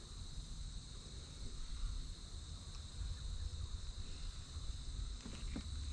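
Steady, high, unbroken trill of crickets, over a low rumble, with a few faint clicks near the end.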